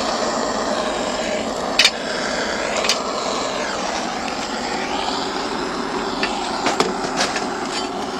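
Handheld charcoal lighter running at a high setting, a steady rushing jet aimed into the base of a charcoal chimney starter to light the newspaper under the charcoal, with a few clicks along the way.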